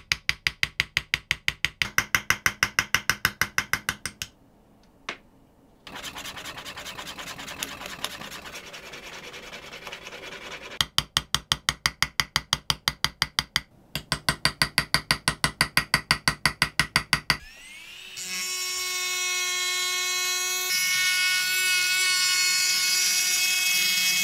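Small hammer tapping an engraving chisel into a kitchen knife's steel blade in quick, even strokes, about eight a second. The taps come in runs broken by a short pause and a stretch of softer scraping. About 17 seconds in, a handheld rotary engraving tool spins up with a rising whine and runs at a steady high pitch as its burr grinds into the blade.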